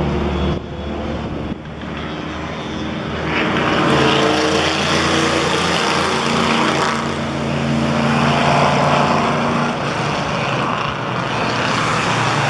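Track-day cars running at speed on a race circuit, engines at high revs passing, the noise swelling from about three seconds in.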